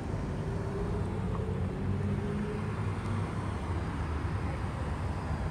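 Street ambience: a steady low rumble of traffic, with a faint passing engine tone in the first couple of seconds.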